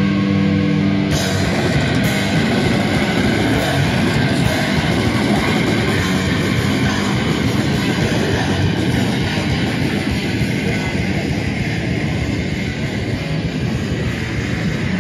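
Live grindcore band playing loud: distorted electric guitars and bass with fast, dense drumming and a screamed vocal. About a second in, a held, ringing chord breaks into the full-band onslaught, which keeps going steadily.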